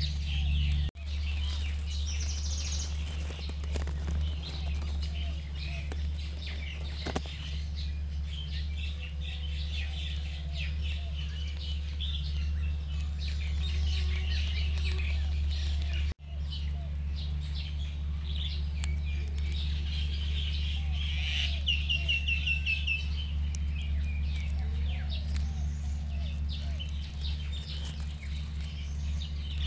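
Wild birds chirping and calling, with a short trill about two-thirds of the way through, over a steady low hum. The sound cuts out for an instant twice.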